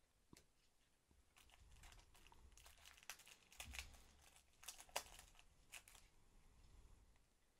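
Faint crinkling and tearing of a Match Attax trading-card pack's wrapper as it is ripped open by hand: a run of sharp crackles over a few seconds, loudest about five seconds in.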